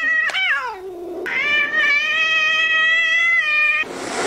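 White cat yowling: a short call falling in pitch, then one long, drawn-out, steady yowl of about two and a half seconds, breaking into a hiss near the end.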